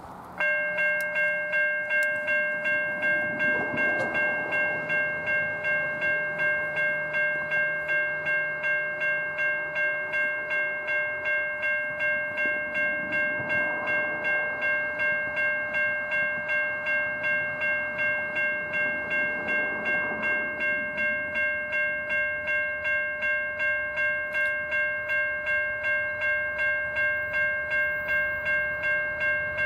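Railroad grade-crossing warning bell starting up about half a second in and ringing steadily at about two strokes a second, the signal that the crossing gates have activated for an approaching train.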